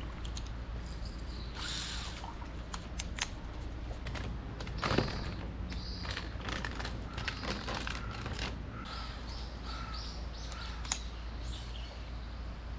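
Outdoor fishing ambience: small birds chirping in short calls over a steady low rumble, with scattered sharp clicks and a single louder knock about five seconds in.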